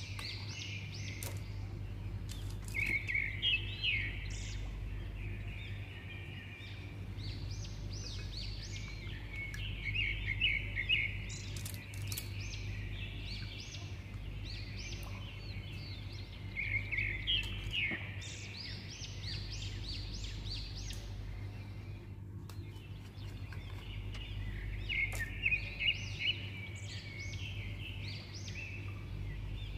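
Small birds chirping in short clusters every several seconds, over a steady low hum.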